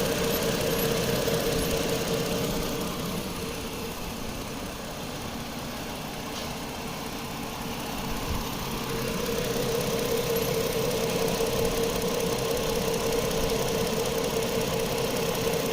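Chrysler Sebring's 2.7 L V6 idling with the A/C switched on during a refrigerant recharge. A steady whine runs with it, fading for a few seconds partway through and then returning.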